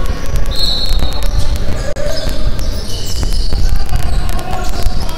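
Basketball bouncing repeatedly on a hardwood court, with short high sneaker squeaks on the floor about half a second in and again around the middle.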